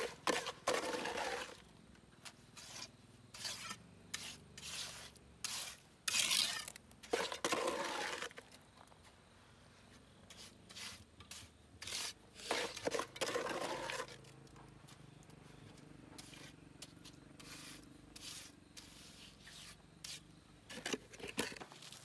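Scraping in separate long strokes, about one to two seconds each and several seconds apart, with light knocks and rustles in between.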